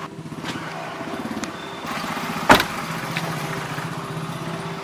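Car engine idling with a steady low hum, and a car door slammed shut once about two and a half seconds in.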